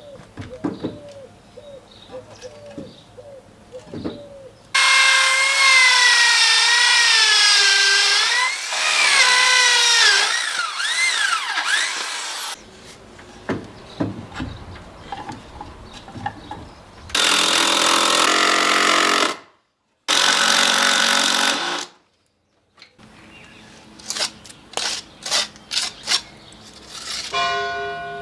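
A power tool running in loud stretches, its pitch wavering up and down under load, between scattered taps and clicks of hand work, with abrupt cuts between clips. Music comes in near the end.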